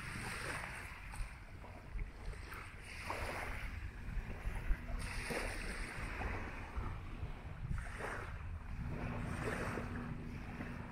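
Small waves washing onto a sandy beach, swelling and fading every two or three seconds, with wind rumbling on the microphone underneath.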